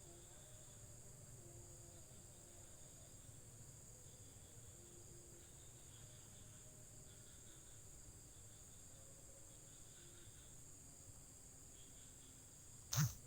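Faint, steady chirring of an insect chorus, an even high-pitched drone, with one sharp knock near the end.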